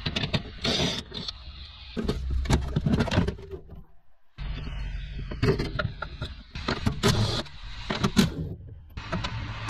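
Clattering and knocking of plastic and metal parts with short whirring bursts of a cordless Makita impact driver during hybrid battery work. The sound cuts out briefly about four seconds in.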